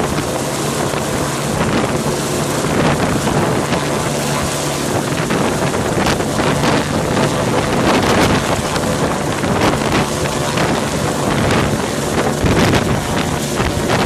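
Police helicopter hovering low overhead: steady rotor and turbine noise with a low hum, and gusts of rotor downwash buffeting the microphone.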